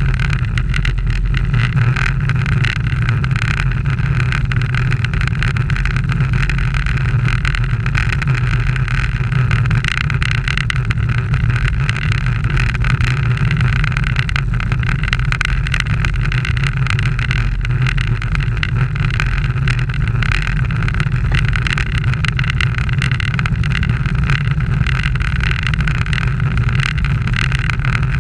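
Steady rumble of wind and road noise on a camera mounted on a racing bicycle riding in a pack, with no break or change.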